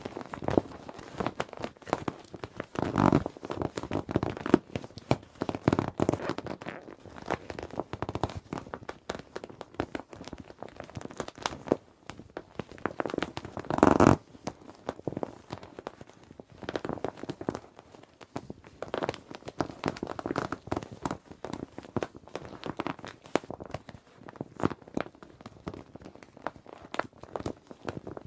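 Plastic children's inflatable swim ring being handled, squeezed and crumpled: crinkling and rubbing plastic in irregular bursts, the loudest about halfway through.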